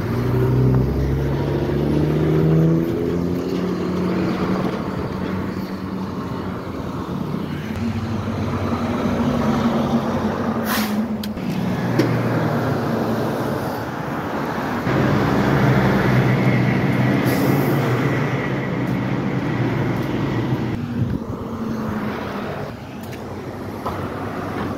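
Heavy diesel vehicles passing close by on a city street: a school bus engine rising in pitch as it pulls away, then a garbage truck's engine. Two short hisses like air brakes come near the middle.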